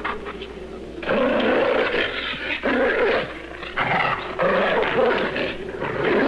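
Sound-effect werewolf snarling and growling: a rough, beast-like animal voice, quieter at first and then loud from about a second in, in repeated snarls.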